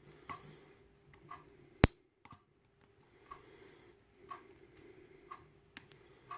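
Picking a pin-tumbler padlock with a hook and tension wrench: one sharp click about two seconds in. Under it are faint, even ticks about once a second, like a clock.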